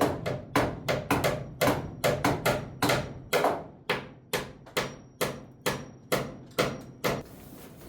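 Hammer driving nails into wooden framing lumber: a rapid, steady run of sharp blows, about three to four a second, that stops about seven seconds in.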